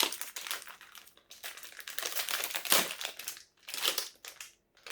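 Plastic snack packaging crinkling and rustling in irregular spells with short pauses, as a package of grape mochi is opened and handled.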